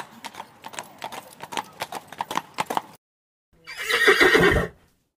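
Horse hooves clip-clopping in a quick even rhythm for about three seconds, then, after a short pause, a horse neighing loudly for about a second.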